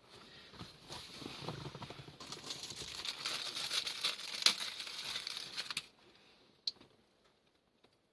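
Crinkling and rustling of wiring and plastic being handled, with many small clicks, stopping abruptly about six seconds in; a single sharp click follows a second later.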